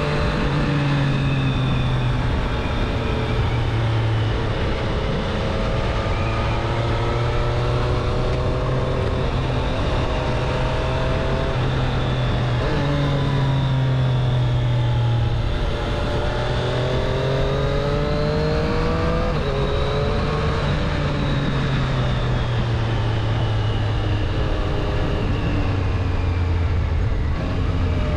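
Triumph Street Triple 765 RS's 765 cc inline three-cylinder engine under way, its pitch climbing under throttle and dropping back several times as it shifts gears and slows, over a steady rush of noise.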